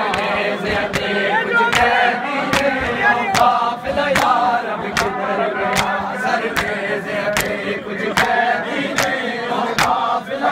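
A crowd of men chanting a Punjabi noha together, kept in time by loud chest-beating (matam): open hands slapping bare chests in unison, a little more than one stroke a second.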